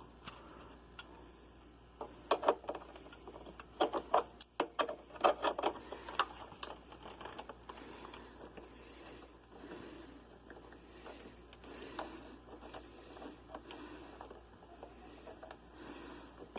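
A quick run of sharp clicks and knocks from cables and plugs being handled and pushed into connectors, then faint scattered handling noise.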